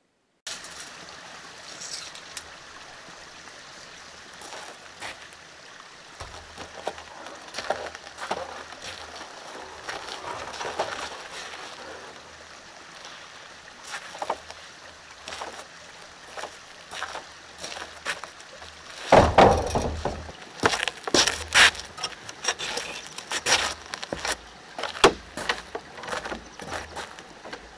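Steady rush of a stream with scattered wooden knocks. From about two-thirds of the way through come many loud knocks and thumps of long boards being handled and set down on a wooden plank floor, with footsteps on the planks.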